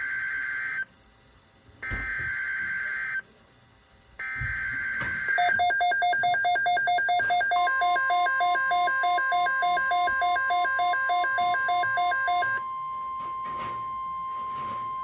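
NOAA Weather Radio emergency alert: the SAME data header comes as three short buzzy bursts a second apart. It is followed by a rapid electronic beeping, about three to four beeps a second, over the steady 1050 Hz warning alarm tone. The beeping stops about two-thirds of the way through, and the alarm tone carries on alone.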